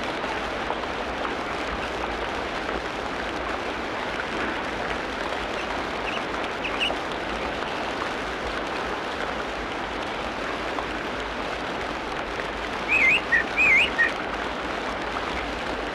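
Tropical rainforest ambience: a steady hiss of background noise with birds calling over it, a short chirp about halfway through and a louder warbling whistled phrase of several quick notes near the end.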